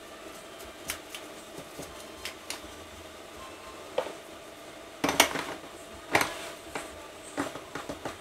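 Metal clinking and knocking as a starter motor is handled and seated into a Suzuki DRZ400 engine's crankcase: scattered light clicks, then louder knocks about five and six seconds in, over a faint steady hum.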